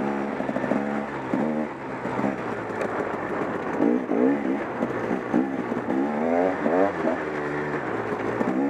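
KTM 300 XC-W dirt bike's 300 cc two-stroke single-cylinder engine being ridden on the trail, its revs rising and falling again and again as the throttle is worked.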